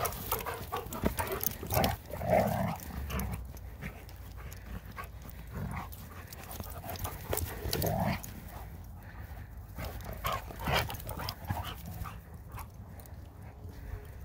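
Two giant schnauzers play-fighting, with short bursts of dog vocal noise every few seconds and scuffling sounds in between; it quietens near the end.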